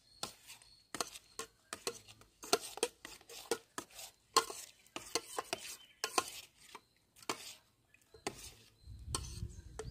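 Steel spoon stirring in a stainless steel pot, clinking and scraping against its sides in irregular taps.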